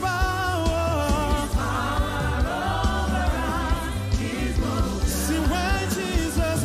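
Live gospel worship song: voices singing the line "Sin's power over us is broken" over a band with a steady beat.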